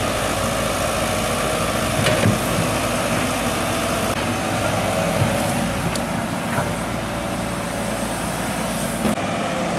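Diesel engine of a Caterpillar tracked excavator running steadily as it digs mud, with a few light knocks.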